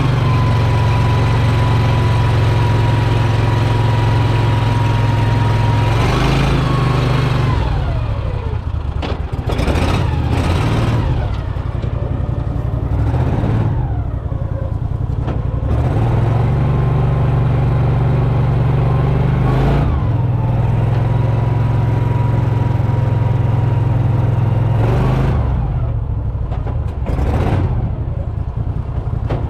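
Boat motor running at speed with a steady drone, the throttle eased off and opened up again several times.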